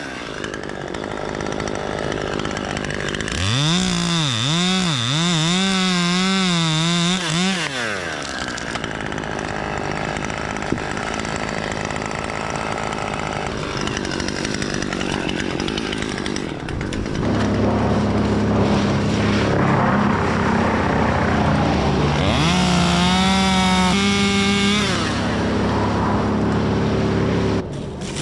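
Gasoline chainsaw cutting through a dead white oak, its engine pitch repeatedly dipping and recovering as the chain bogs in the cut. It runs steadily at high speed for a long stretch late on, then cuts off sharply near the end.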